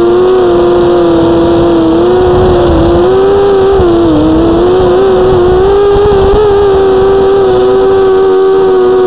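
Small FPV drone's motors and propellers whining on board, a loud steady buzz whose pitch wavers slightly with the throttle and dips briefly about four seconds in.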